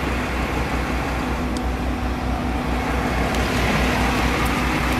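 Steady car and road-traffic noise heard from inside a car: a low engine rumble with a steady hum over it, growing slightly louder toward the end.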